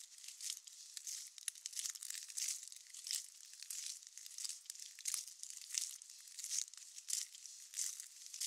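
Rain pattering close to the microphones: a thin, high, crackling hiss that swells louder every half second or so, irregularly.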